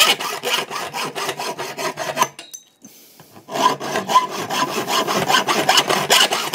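Hacksaw with a fine 24-teeth-per-inch blade sawing through thin-walled copper pipe in quick back-and-forth strokes. The blade cuts smoothly without snagging. The sawing stops for about a second in the middle, then resumes.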